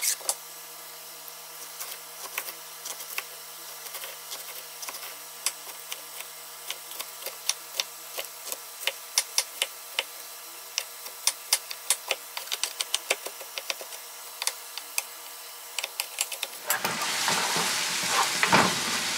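Kitchen knife chopping a jalapeño on a wooden cutting board: irregular sharp taps, several a second, over a steady faint hum. Near the end, diced nopales, onion and jalapeño sizzle as they fry in oil in a pan.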